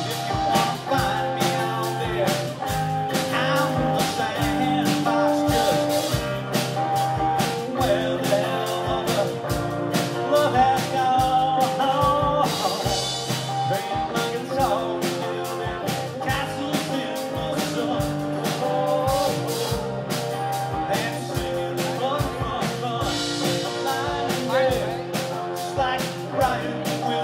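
Live rock band playing an instrumental stretch of a song: electric guitar and acoustic guitar over a drum kit keeping a steady beat.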